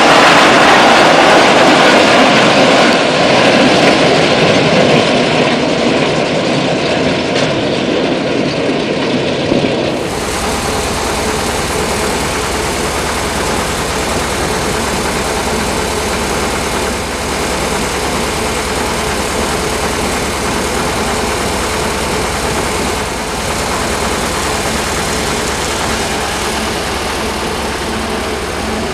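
Deutz OMZ 117 narrow-gauge diesel locomotive hauling a train of steel skip wagons: first loud and noisy as it passes close by, then, after a sudden change about ten seconds in, a steady low engine drone heard from the cab as it runs along the line.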